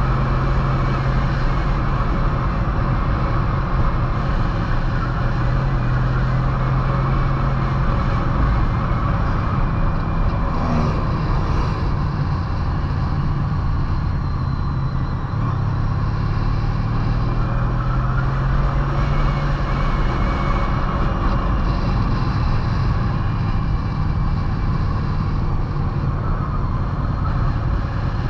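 Touring motorcycle engine running under way, heard from on the bike with wind and road noise, its note rising and falling a little near the middle as the rider works the throttle through the curves.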